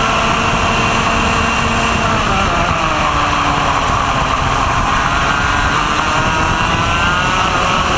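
Racing kart's Vortex ROK GP 125cc two-stroke engine at racing speed, heard from on board. Its note drops about two and a half seconds in as the driver lifts for a corner, then climbs steadily as the kart accelerates out onto the straight.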